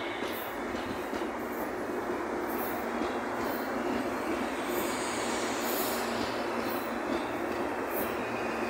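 Electric multiple-unit commuter train moving along the platform: a steady rumble of wheels on rail with a faint running hum, and brief high squeaks about once a second.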